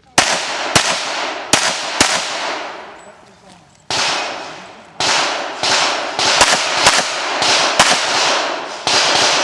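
Pistol gunfire: four shots about half a second apart, then after a short pause a quicker string of about a dozen more. Each shot rings out with a long echo tail.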